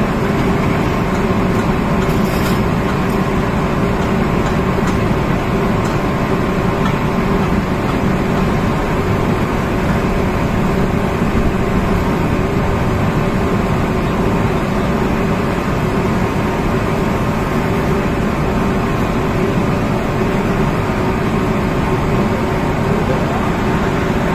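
Unloading machinery on a barge running steadily with a constant hum, over the noise of alluvial sand sliding and pouring down into the opening in the hold.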